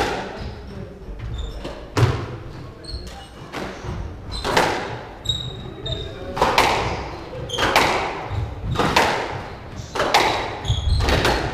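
Squash rally: the ball cracking off rackets and the court walls about once every one to two seconds, each hit ringing in the court's echo. Short high squeaks of shoes on the wooden floor come between the hits.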